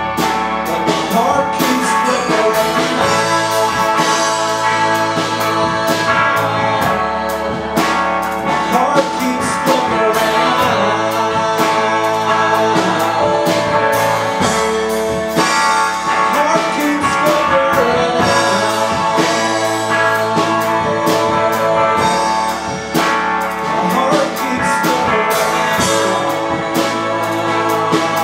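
Live rock band playing: electric guitar strumming over a drum kit keeping a steady beat.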